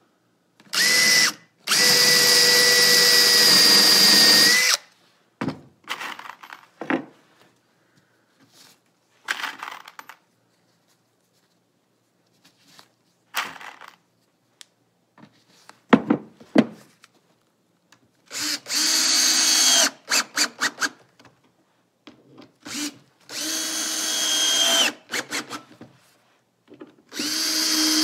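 Cordless drill running in several separate runs, boring angled holes and driving bronze screws through a 3/8-inch marine plywood boat bottom into the chine; some runs are steady, one stutters on and off. Between the runs come scattered clicks and a few sharp knocks of tools and screws being handled.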